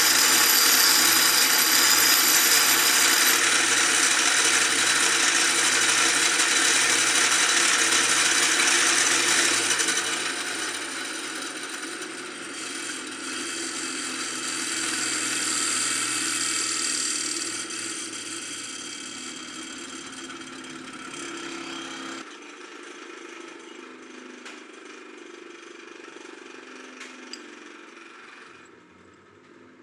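An electric power tool running while working metal, with a steady motor hum under a grinding hiss; it is loud for about ten seconds, then fades away gradually over the rest.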